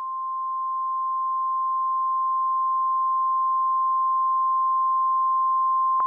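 Emergency alert attention tone: a single steady pure tone just above 1 kHz, the weather-radio alert tone, held without a break and swelling slightly in loudness. It is the attention signal that comes before the spoken emergency message.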